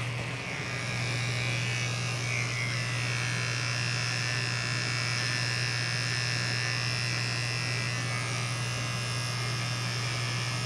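Electric beard trimmer running with a steady low buzz as it cuts along the beard.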